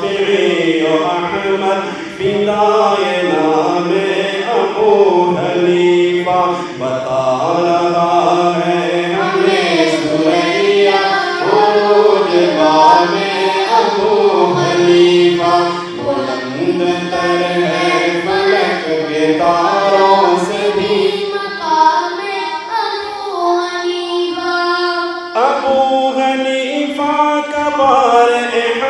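Urdu devotional song (manqabat) in praise of Imam Abu Hanifa, sung as a melismatic chant over a held low drone. The melody steps up abruptly near the end.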